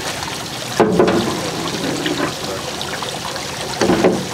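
Water running and splashing in a fish boat's wet well as a fish is lifted out of a landing net, with louder splashes about a second in and near the end.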